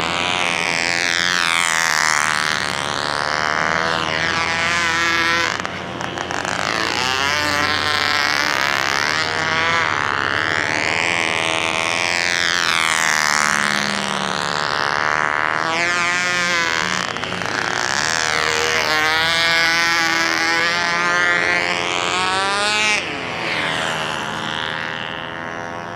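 McCoy .29 Red Head two-stroke glow engine of a control-line model plane running at full throttle as it circles, its pitch rising and falling once each lap, about every four to five seconds. The level dips suddenly about six seconds in and again near the end.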